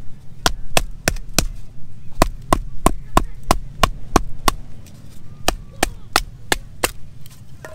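A wooden baton strikes the spine of a knife to split a stick of firewood (batoning). It makes sharp knocks about three a second, in three runs with short pauses between.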